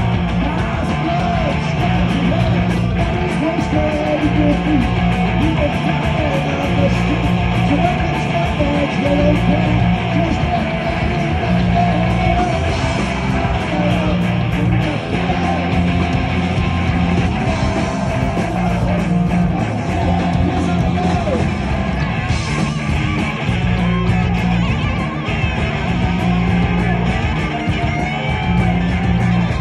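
Live punk rock band playing loud: distorted electric guitars, bass guitar and drums through the stage amplifiers and PA.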